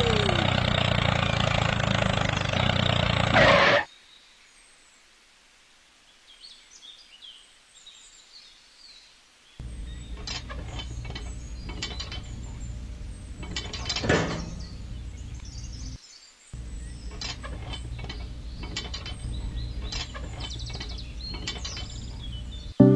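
An engine-like running sound that cuts off abruptly about four seconds in, followed by a near-quiet stretch with faint bird chirps. From about ten seconds a low hum carries scattered clicks and knocks of small parts of a toy tractor being handled and fitted at its rear hitch.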